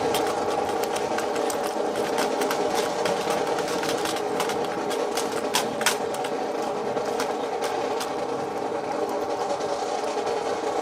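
A steady machine hum with scattered sharp clacks from a drill team's synchronized movements, a cluster of them around the middle.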